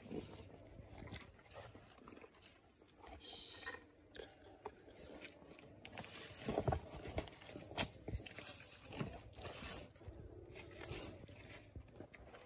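Komodo dragon swallowing its prey whole: faint, irregular crunches and clicks of jaws working on flesh and bone, loudest a little past the middle.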